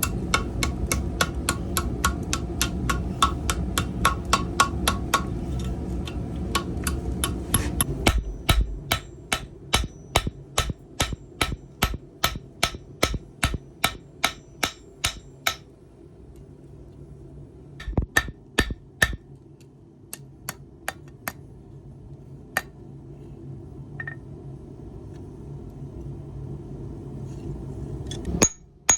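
Blacksmith's hammer striking steel on an anvil while forging, in a fast, even run of ringing blows, about three a second, for roughly the first half. The blows stop about halfway through, a few scattered blows follow, and rapid hammering starts again near the end.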